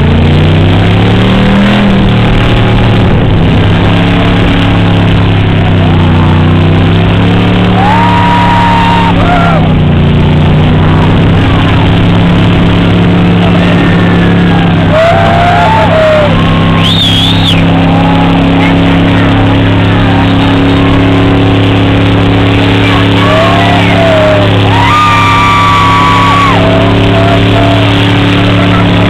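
A car's engine revved up and held at high revs through a long burnout, its pitch dipping and recovering now and then. Crowd shouts and a whistle come over it.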